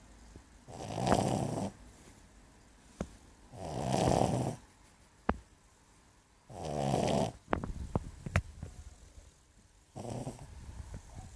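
Brussels griffon snoring while asleep: four snores, each about a second long and about three seconds apart, with a few short sharp clicks between them.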